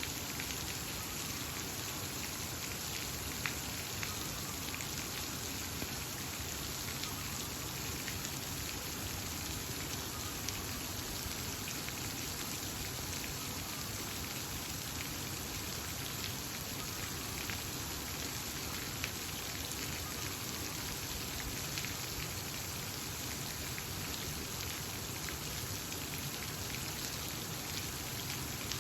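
Steady rush of water, an even hiss with a few small ticks of drops scattered through it.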